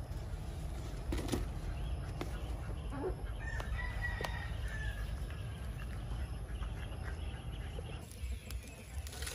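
A chicken gives one long, slightly falling call about three and a half seconds in, over a steady low rumble and a few short knocks.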